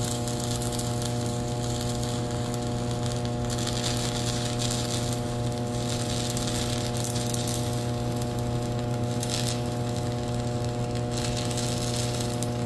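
Stick-welding arc from a Sefaspe 120 A inverter welder burning a 6013 rod, set a little above 60 amps: a steady crackling sizzle with a constant hum under it, running without a break.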